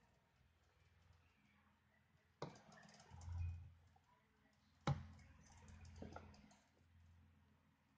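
Handling noise on a phone's microphone: two sharp knocks about two and a half seconds apart, then a smaller one, with crackling rustle and a low rumble between them.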